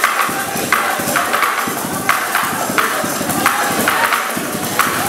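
Acoustic guitar strummed in a steady rhythm with hand percussion on a calabash gourd, sharp accented strokes about every two-thirds of a second.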